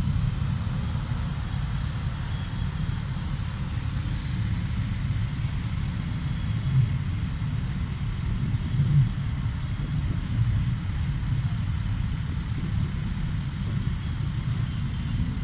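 Motorcycle engines idling in a steady low rumble, with a couple of brief louder swells near the middle.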